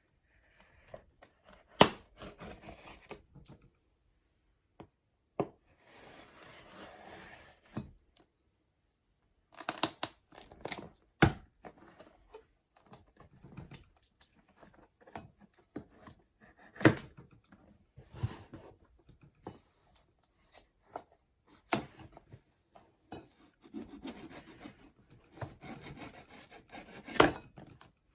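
A utility knife cuts the packing tape on a large cardboard box and the box is opened by hand. It is heard as scraping and tearing of cardboard and tape, broken by sharp knocks and thumps every few seconds.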